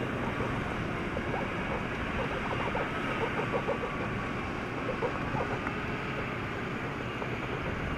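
Steady rushing noise of wind buffeting the microphone, with faint voices murmuring in the background about halfway through.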